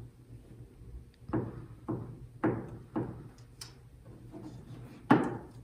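Hand pressing and patting a glued paper piece down on a tabletop: four soft knocks about half a second apart, then a louder knock near the end.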